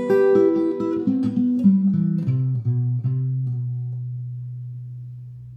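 Acoustic guitar playing its closing phrase: a few plucked notes stepping down in the bass, then a final low note that rings on and fades away.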